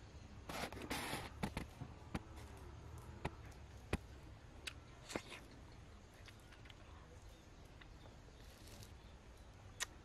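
Close-up eating sounds of a person biting and chewing soft, juicy red dragon fruit: scattered wet mouth clicks and smacks, with a short wet burst about half a second in.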